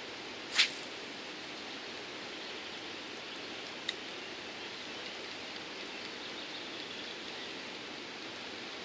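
Steady rush of river water at a dam, with one sharp swish of a spinning rod being cast about half a second in, and a short click near four seconds in.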